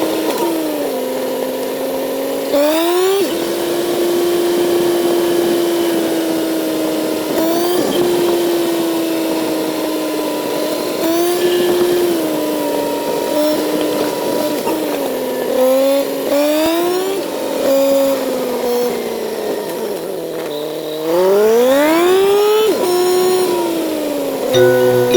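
Kawasaki Z900's inline-four engine running while riding, its pitch holding steady, dipping and climbing again with throttle and gear changes, with a long rising rev near the end.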